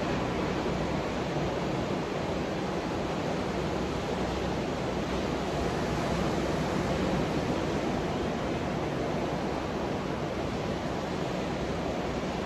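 Steady rush of ocean surf, waves breaking continuously along the beach.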